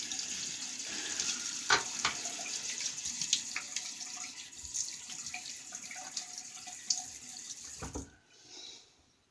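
Tap water running steadily into a bathroom sink, with splashes and small clicks over it, turned off about eight seconds in.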